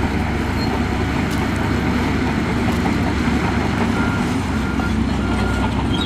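Heavy diesel earthmoving machinery running steadily with a deep rumble. About four seconds in, a repeating high beep starts.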